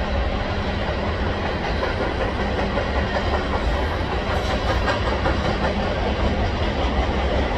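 Freight train of covered hopper cars rolling past at steady speed: a continuous heavy rumble of steel wheels on rail, with a few faint clicks a little past halfway.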